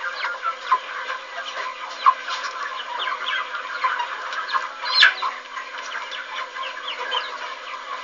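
A flock of broiler chickens calling, with many short overlapping calls and one louder call about five seconds in.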